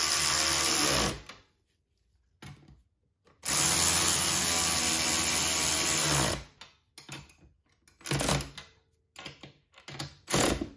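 Snap-on cordless electric ratchet running as it drives 10 mm bolts home, tightening them to the ratchet's own torque limit. There is a run ending about a second in, a longer run of about three seconds in the middle, then a couple of brief blips near the end.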